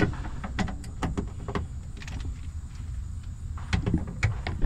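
Irregular clicks and knocks of hands and a tool working a hardtop mounting bolt on a Ford Bronco's roof rail, clustered at the start and again near the end, over a low steady rumble.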